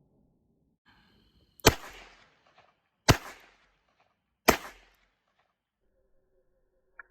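Three shots from a Smith & Wesson Safety Hammerless ('Lemon Squeezer') revolver in .32 S&W Short, about a second and a half apart, each a sharp crack with a short tail.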